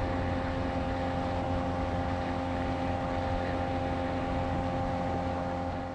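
Outboard motor running at a steady speed, pushing an inflatable boat along, its hum holding one even pitch.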